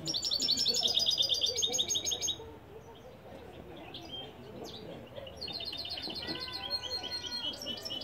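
Caged European goldfinch singing: a fast, trilled twittering phrase lasting about two and a half seconds, a short pause, then another twittering phrase starting about five and a half seconds in.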